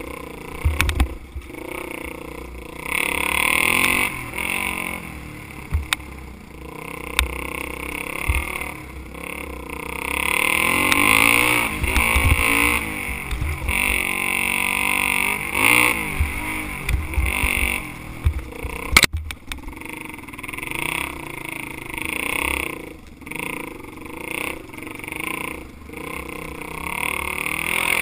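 Engine of an off-road vehicle riding a bumpy dirt trail, its pitch rising and falling repeatedly as the throttle is opened and closed. Uneven low rumble runs throughout, and a sharp knock comes about two-thirds of the way through.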